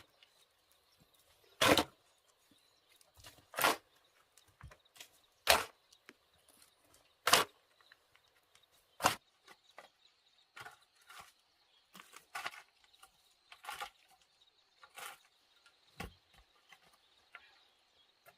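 Hand-tool strikes during shelter building: five loud, evenly spaced blows about two seconds apart, then lighter, quicker knocks from about ten seconds in.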